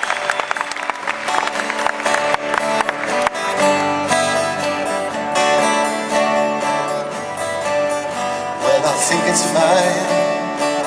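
Acoustic guitar playing the intro of a song live, with the tail of audience applause over the first few seconds; fuller, sustained chords come in about three seconds in.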